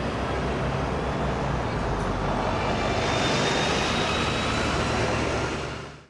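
Street traffic with a red double-decker bus passing close by: a steady engine-and-tyre rumble with a faint, slowly rising whine, fading out at the end.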